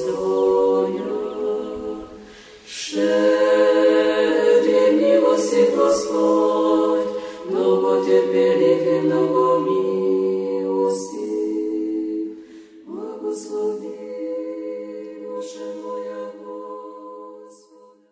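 Unaccompanied choir singing Orthodox chant in Church Slavonic. Several long held phrases come with short breaks between them, and the last fades out near the end.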